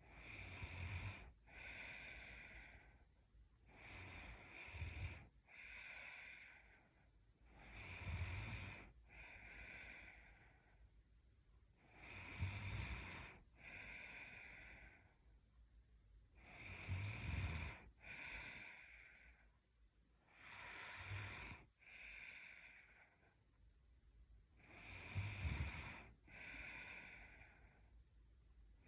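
A woman asleep breathing slowly and softly snoring: about seven breaths, each an in-and-out pair roughly four seconds apart, with a short low snore on one half of each pair.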